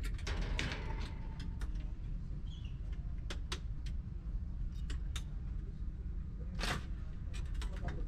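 Steady low hum of shipboard air-handling machinery, with scattered light clicks and knocks and one louder rustling scrape about seven seconds in, as a pleated air-conditioning filter is pulled out of a fan coil unit.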